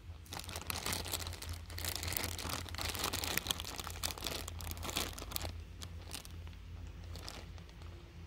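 Clear plastic zip-top bag crinkling as it is gripped and squeezed around a plush giraffe toy. The crackling is dense for the first five seconds or so, then thins out to scattered crinkles.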